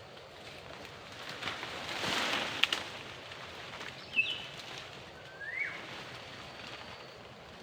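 Two short animal chirps over outdoor background: a brief high hooked call about four seconds in, then a quick rising call about a second later. Before them there is a swell of rustling noise with a couple of sharp clicks.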